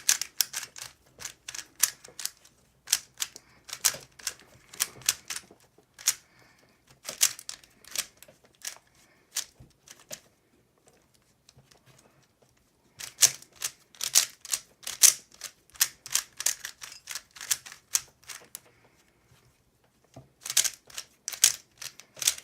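Plastic Rubik's Cube layers being turned rapidly by hand, giving runs of quick sharp clicks. The clicking stops briefly about ten seconds in and again near the end.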